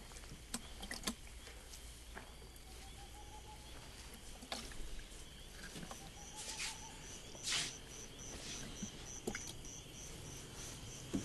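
Night ambience of insects chirping, with an evenly repeated high chirp from about halfway through, and a few faint scattered clicks.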